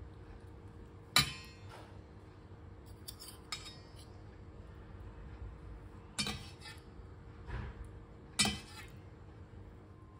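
Metal spoon and fork clinking in a stainless steel pan while flaking steamed fish: a handful of sharp separate clinks, the loudest about a second in.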